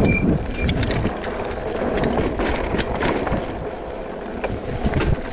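Wind buffeting the microphone while riding an e-bike, with a dense low rumble and many scattered rattling clicks.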